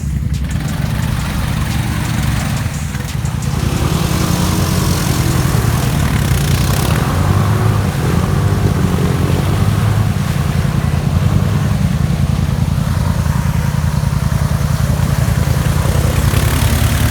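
Honda Foreman 500 ATV engine running steadily under way, with a constant rush of noise above it; it grows a little louder about four seconds in.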